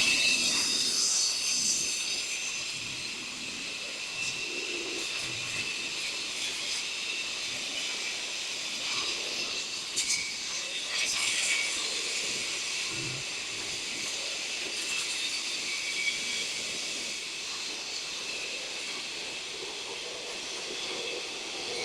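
BODA BLC-420 brushless concrete saw running and cutting a concrete floor: a steady high whine over a continuous hissing grind, with a few brief harsher spikes around the middle.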